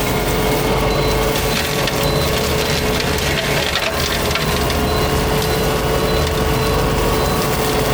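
Fecon forestry mulcher head on a Takeuchi machine running and grinding through brush and wood, with splintering and crunching over a steady whine.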